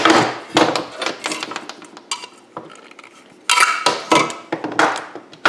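Sharp metal clinks and knocks as a knockout is struck and worked out of a square steel electrical box with hand tools, the box ringing briefly after the harder hits.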